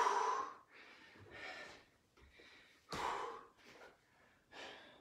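A man breathing hard from exertion: short, forceful breaths, about four in five seconds, with quiet gaps between them.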